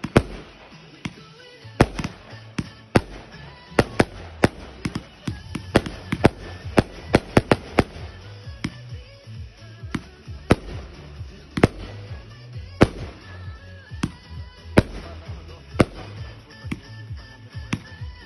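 Fireworks display: shells bursting in a fast, irregular string of sharp bangs, often two or three a second, with music playing underneath.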